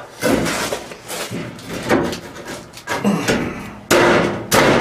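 A notched 2x4 wood block being knocked into place between steel wall studs at floor level: a run of wooden knocks and thuds, the two loudest near the end.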